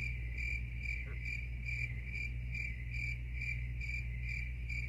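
Cricket chirping steadily, a bit over two high chirps a second, over a low steady hum.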